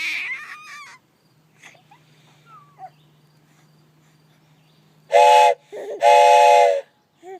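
Train whistle blowing two blasts, a short one about five seconds in and a longer one right after, each a steady chord of several tones. A young child's laughing babble trails off in the first second.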